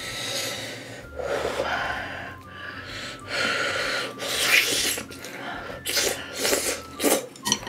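A person blowing several times on a steaming spoonful of hot sujebi dough from a spicy fish stew, then eating it with short wet mouth sounds and clicks near the end.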